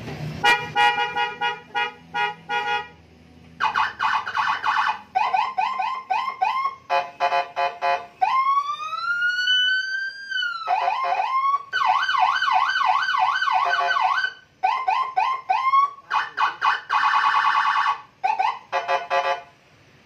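Custom police-escort (patwal) electronic siren on a scooter, switched through its tones one after another from a handlebar button box. It plays rapid pulsed beeps, fast warbles, repeated rising chirps, one slow rising wail and a fast up-and-down yelp, with short breaks between modes.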